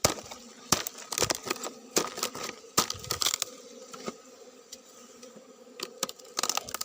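Irregular cracking, crackling and tearing of dry, fibrous dead tree-fern wood as the hollow trunk around a wild honeybee nest is broken open, with sharp snaps scattered through and a busier cluster near the end.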